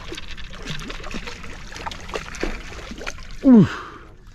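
A hooked fish splashing and thrashing at the water's surface as it is worked toward a landing net, with small splashes and drips throughout. About three and a half seconds in, a short, loud falling vocal exclamation from a person.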